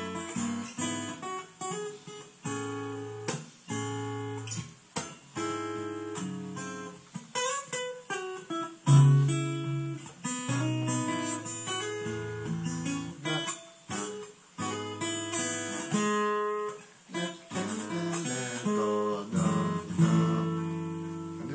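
Acoustic guitar played fingerstyle: a melody picked note by note over low bass notes and chords, each note ringing and fading.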